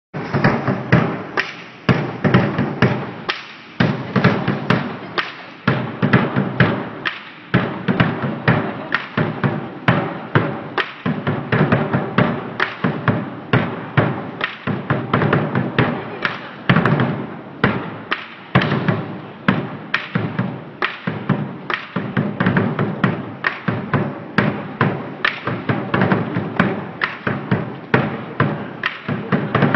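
Lion dance percussion: a large drum struck in a fast, steady beat with crashing cymbals over it, accompanying a lion dance.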